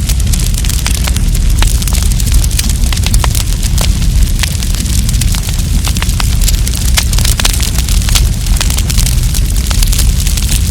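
Wood campfire crackling, with many sharp, irregular pops and snaps over a steady low rumble.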